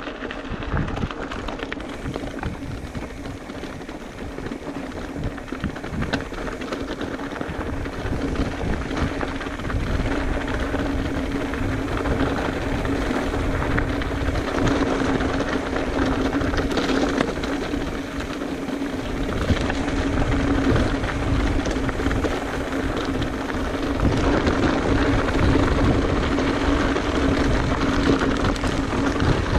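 Mountain bike riding down a steep, rocky alpine trail: a continuous rattle and rumble of the tyres and frame over stones, full of uneven knocks, with a steady hum under it.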